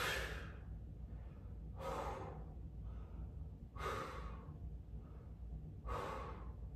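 A man breathing hard as he catches his breath after a set of 40 crunches: four heavy breaths, about one every two seconds.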